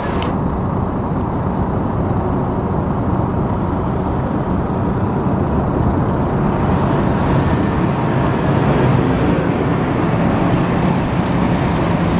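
Scania K400 coach's diesel engine running steadily as the double-decker bus drives past, a constant low engine drone.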